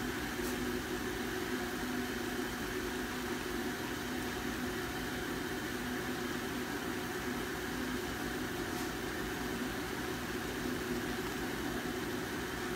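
A steady hum and hiss of a running appliance fan or small motor.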